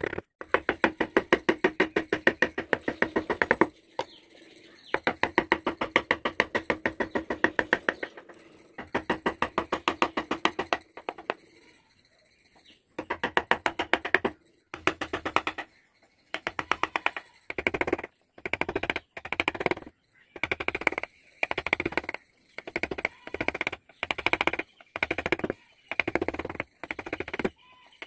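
Rapid light taps of a wood-carving chisel being struck into a wooden board. The taps come in quick runs of one to three seconds with short pauses between them.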